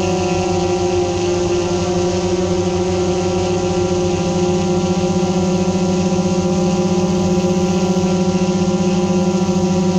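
Multirotor drone's propellers and motors humming steadily at a constant pitch, getting slightly louder after the middle.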